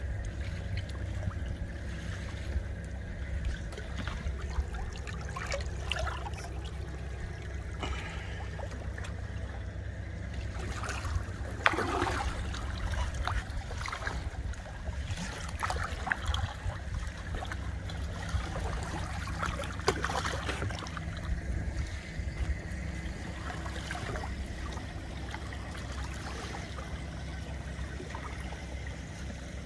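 Shallow saltwater sloshing and trickling around a wading man's legs and hands as he holds a large snook in the water to revive it, with a few sharper splashes, over a steady low rumble.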